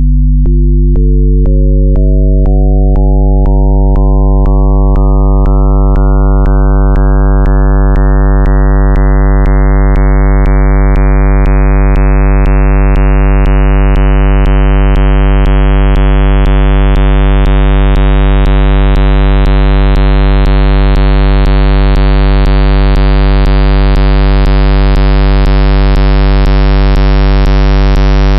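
A synthesized tone built up as a Fourier series of a square wave: odd harmonics are added one at a time, about two a second, so a pure low tone grows steadily brighter and buzzier toward a square-wave sound. Each new harmonic comes in with a faint click.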